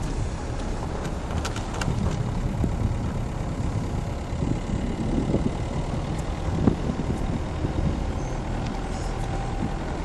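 Car driving slowly over a snow-covered road, heard from inside the cabin: a steady low engine rumble with the noise of the tyres in the snow.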